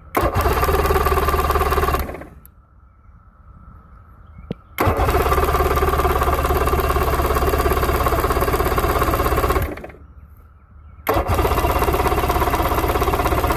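1996 Mercury four-cylinder two-stroke outboard spun over on its electric starter in three bursts, about two seconds, five seconds, then again from near the end, with an even pulsing beat. This is cranking for a spark test, with inline spark testers on the plug leads.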